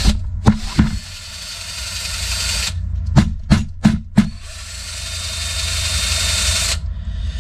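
Electric drill spinning a paddle mixer through thick monster mud in a plastic bucket. The motor runs, eases off about a second in and speeds back up, then stops. It is pulsed in four short bursts, runs again, and stops shortly before the end.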